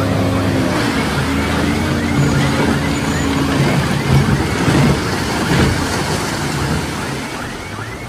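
Diesel engine of heavy earthmoving machinery running steadily, with a repeated high squeak a couple of times a second and a few knocks around the middle.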